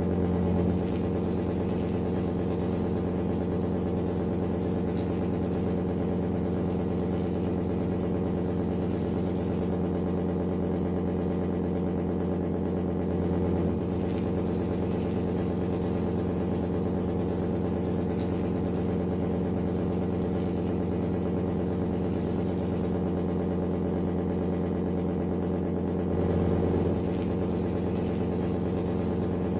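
Steady engine idle from a remote-control model, one even drone that swells briefly louder three times: just after the start, about halfway and near the end.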